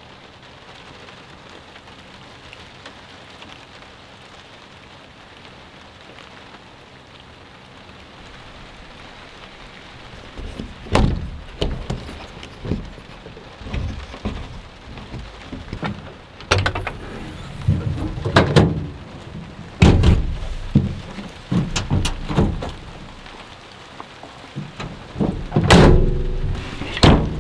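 Steady rain. From about ten seconds in, a run of irregular loud thumps and knocks comes over the rain, loudest near the end.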